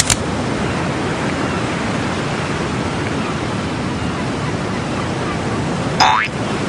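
A steady, even rushing noise, with no words. About six seconds in, a short tone sweeps quickly upward in pitch.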